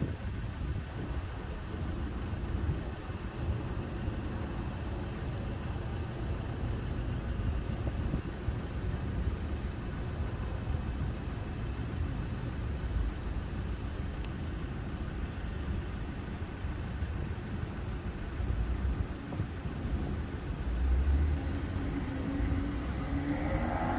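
Steady low rumble of idling engines around a level crossing, with an electric multiple-unit train standing at the platform. A rising whine starts near the end.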